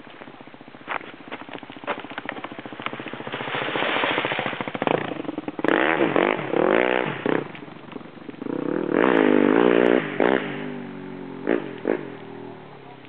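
KTM enduro motorcycle engine revving hard in bursts as the bike works up a steep dirt slope. The revs swing up and down sharply about five to seven seconds in and again about nine to eleven seconds in, the loudest parts, with scattered knocks between.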